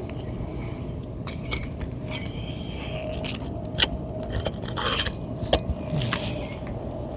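Metal roof snake scraping and clinking under an asphalt shingle as it works at a stuck roofing nail, which keeps catching because it was driven at an angle. There are scattered sharp clicks, a clear one near four seconds in and another about five and a half seconds in, and a short rasp just before five seconds.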